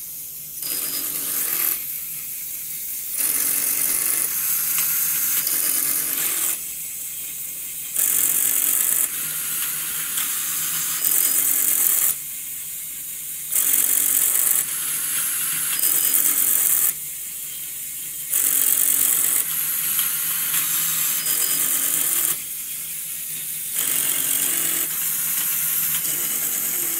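Automated LEGO Mindstorms RCX loom weaving on mains power: its motors and plastic gears whir in a repeating cycle about every five seconds, a louder stretch of a few seconds, then a quieter pause of about a second and a half.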